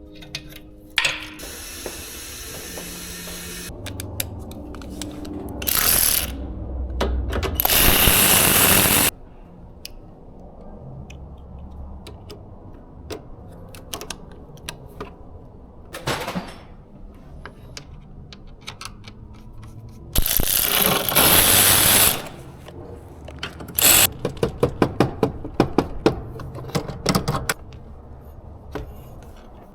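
Workshop tools at work: a power tool runs in several short bursts of a second or two, and a quick run of sharp metallic clicks comes about two-thirds of the way through.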